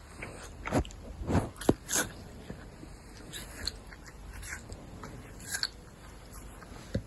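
Caracal sneezing: a quick run of short, sharp bursts in the first two seconds, then a few fainter ones spaced out after.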